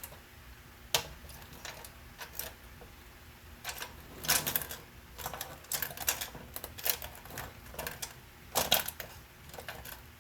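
Irregular clicks and clatter of small hard mounting parts being handled, with a sharp click about a second in and louder bunches of rattling around four and nine seconds in.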